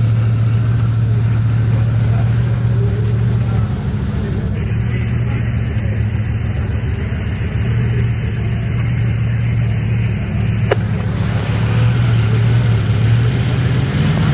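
Bugatti Veyron's 8.0-litre quad-turbocharged W16 engine idling steadily, a low, even drone.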